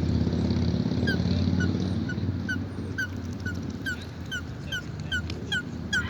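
A low, steady engine-like rumble fades out about two seconds in. Over it, from about a second in, an animal gives a string of short, falling yelping calls, about two a second, that grow louder towards the end.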